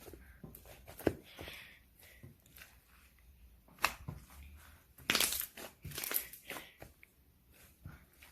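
Slime being squeezed and pressed by hand, giving irregular crackles and pops, with a busier run of them about five to six and a half seconds in.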